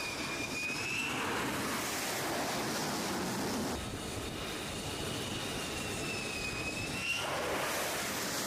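Carrier fighter jet engines running on the flight deck: a steady roar with a high turbine whine that sags and rises a little in pitch.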